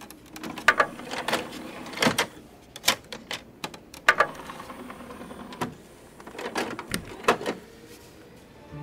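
A string of irregular sharp knocks and clicks, some of them loud, with softer scraping and rustling in between.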